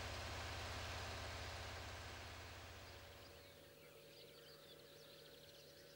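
Faint outdoor nature ambience: a soft hiss with a low hum that fades over the first few seconds, then faint, rapid, high-pitched chirping.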